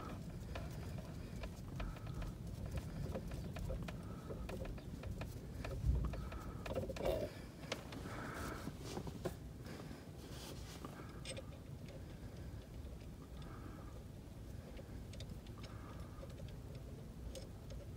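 Hands working a car's manual shift lever and shift boot while swapping the shift knob: scattered light clicks and handling rustle, with a single thump about six seconds in.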